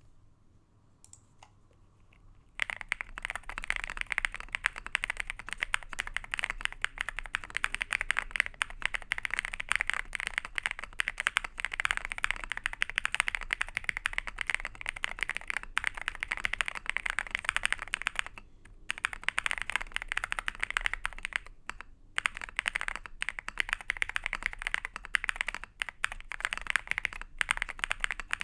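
Meletrix Zoom65 custom mechanical keyboard with Epsilon switches on a polycarbonate plate, typed on fast and continuously: a dense run of key clicks. A few scattered keypresses come first, and the typing stops briefly about two-thirds of the way through.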